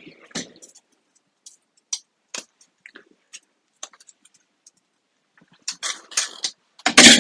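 Scattered light clicks and taps of tools and metal parts being handled on a Tesla Model S battery module, building to a louder clatter near the end.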